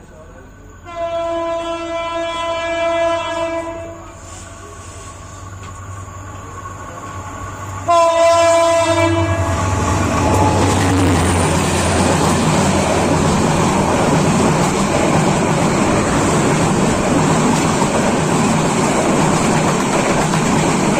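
An approaching Bangladesh Railway Class 2900 diesel-electric locomotive sounds its horn in a long blast about a second in, then a shorter, louder blast around eight seconds in as it draws near. Its engine rumble follows, then the steady, loud rattle of its intercity coaches running past close by on the adjacent track.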